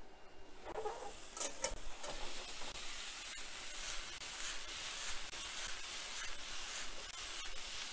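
Vegetables sizzling in a very hot pan: a steady hiss, with a few short knocks of the cookware being handled in the first two seconds.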